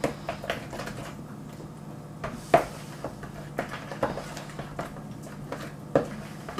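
Utensil stirring pancake batter in a plastic mixing bowl, knocking against the sides in irregular clicks, the loudest about two and a half seconds in and again near the end. A steady low hum runs underneath.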